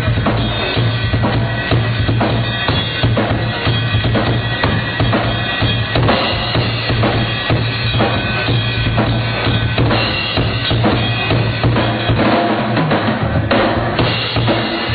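Live rock drumming: a drum kit played fast and loud with dense bass drum and snare hits, over a steady low bass tone that drops away briefly near the end. The top end is dull and cut off, as from an amateur recording.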